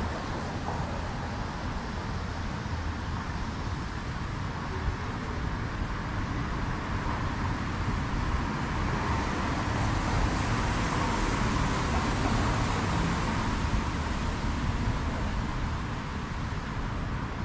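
City street traffic: a steady noise of passing cars, growing a little louder around the middle.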